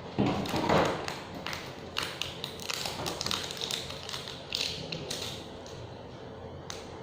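A foil-wrapped chocolate surprise egg being handled and unwrapped: a loud rustle in the first second, then a run of short taps and crinkles of foil that die down about two-thirds of the way in.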